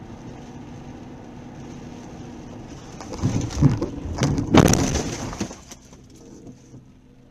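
Steady road and engine noise inside a car's cabin, then about three seconds in a car collision: a loud crunching impact with several bangs over about two seconds, the loudest near the middle, dying away afterwards.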